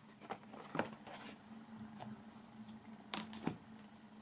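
Faint handling noises of a hardcover photo book being lifted out of a cardboard box: a few soft, scattered knocks and scrapes of board against board.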